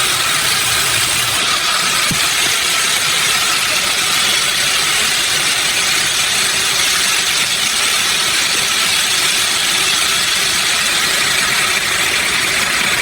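Sawmill machinery running steadily: a loud, even, hissy mechanical noise with no distinct strokes or changes.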